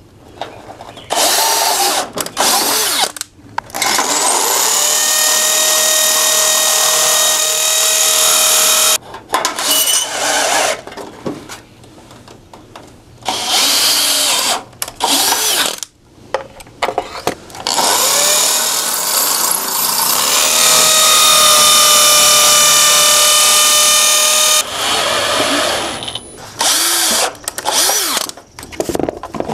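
Cordless drill running against the aluminum G-channel in several runs of two to six seconds, its motor whine holding a steady pitch, with a string of short bursts near the end.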